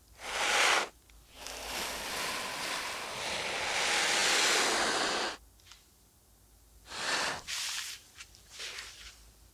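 Swishing sound effects of brush strokes being drawn: a short swish, then a long one of about four seconds that swells and cuts off, then a few shorter swishes near the end.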